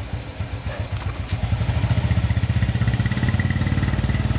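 An engine running with a steady low rumble, getting a little louder about a second and a half in.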